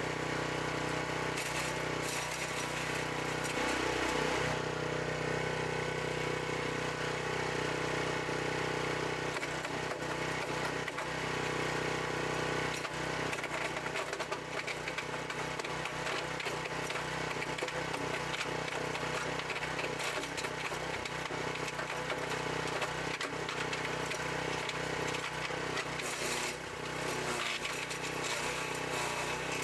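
Forest Master FM6DD direct-drive petrol wood chipper-shredder under load, its single-cylinder engine running steadily while fed branches and leaves are chipped with a continuous irregular crackle and rattle.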